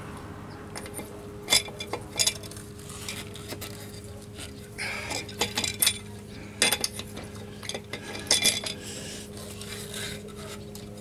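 Metal clinks and clanks of a lug wrench being fitted onto and worked around a car wheel's lug nuts: several sharp ringing strikes, spread irregularly, over a steady low hum.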